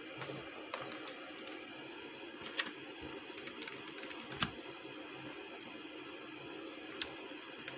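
A few short plastic clicks and taps as a USB flash drive is handled and pushed into the front USB port of a Pioneer DEH-249UB car stereo, the sharpest about four seconds in, over a steady low hiss.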